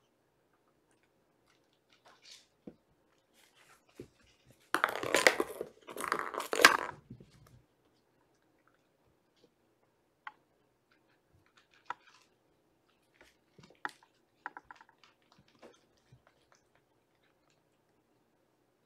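Kittens moving about close to the microphone. Two loud bursts of scratching and rustling come about five and six and a half seconds in, followed by scattered light taps and clicks.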